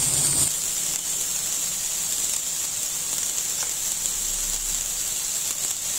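Chopped garlic and fresh red and green chilies sizzling in hot oil in a nonstick pan, a steady hiss. A spatula stirs them briefly in the first half-second.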